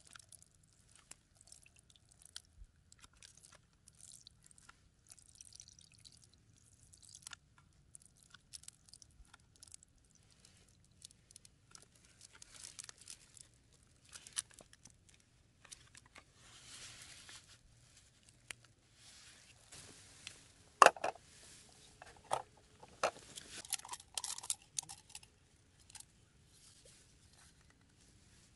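A paper drink carton crinkling as it is squeezed and handled over a metal camping pot. Later come a few sharp clicks and knocks of gear being handled, the loudest about two-thirds of the way in.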